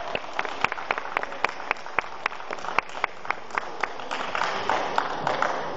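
Audience applauding, with clapping in a steady rhythm of about four claps a second over a wash of general applause that fades near the end.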